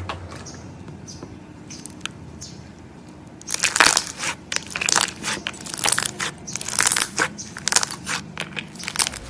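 Slime being squeezed and pressed by hand. About three and a half seconds in it starts giving off a dense run of crackling, popping clicks, after a few scattered ones before.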